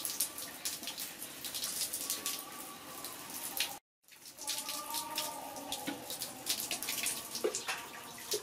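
Water splashing and dripping in a large stainless steel basin as young monkeys are washed and paddle in it, many short irregular splashes. The sound cuts out completely for a moment about four seconds in.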